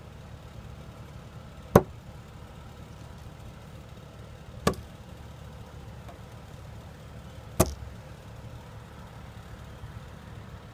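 Three single gunshots about three seconds apart, the middle one quieter, over a steady low rumble.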